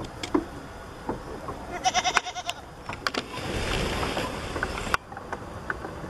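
Goat kids' hooves tapping on a wooden platform in scattered sharp clicks, with a short pulsing sound about two seconds in. From about three seconds a muffled rush of wind and camera-handling noise builds, then cuts off abruptly near five seconds.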